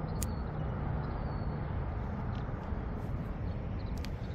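Steady low rumble of distant city traffic, with a sharp faint click just after the start and another near the end.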